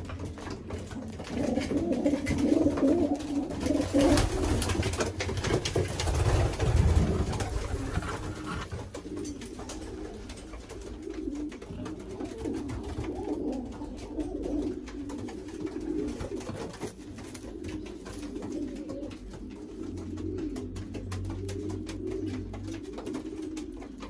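Racing pigeons cooing, low throaty coos repeating over and over. About four to seven seconds in, a stretch of rustling and bumps is louder than the coos.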